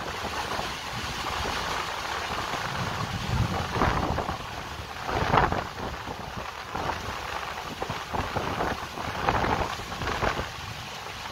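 Heavy rain pouring down in a thunderstorm with strong gusting wind. The wind rises in gusts a few times, buffeting the microphone.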